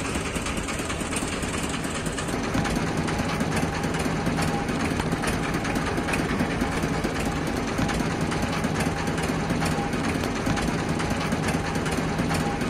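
Boat engine running steadily: a low hum with a rapid, even clatter.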